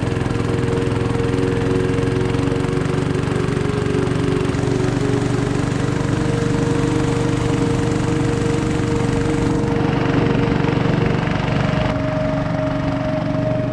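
A small engine running steadily at a constant speed, its held tones shifting slightly about eleven seconds in.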